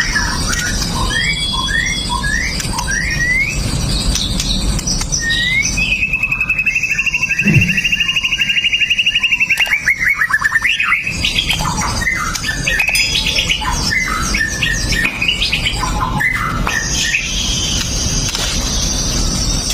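White-rumped shama singing: a run of short rising whistled notes, then a long, fast rattling trill of about five seconds, followed by varied short chattering notes, over a steady low background rumble.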